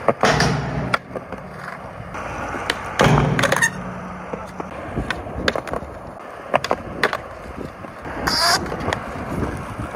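Skateboard on concrete: a sharp clack just after the start as the board hits the ledge, then a second loud clack about three seconds in, followed by the wheels rolling with a low rumble. Lighter clicks of the board follow.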